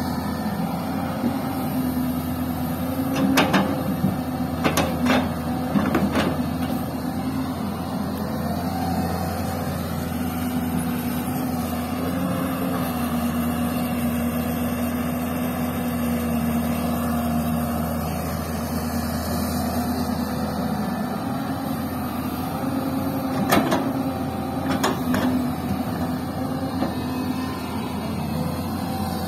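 Diesel engines running steadily: a Hyundai crawler excavator working with a Mitsubishi Colt Diesel dump truck idling alongside. Twice, about three seconds in and again around twenty-four seconds in, a few sharp knocks stand out as a bucketload of soil and stones is dumped into the truck's steel body.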